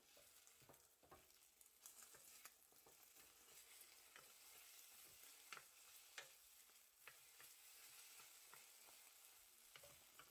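Food sizzling in a frying pan while being stirred, with irregular clicks of the utensil against the pan.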